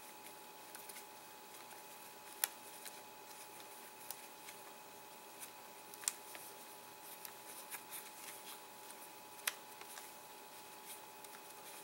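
Thin metal sheet and foil wrapping being peeled and bent off a DJI Phantom 4 battery's lithium cell pack by gloved hands: faint crinkling and small clicks, with three sharper snaps spread through, over a faint steady hum.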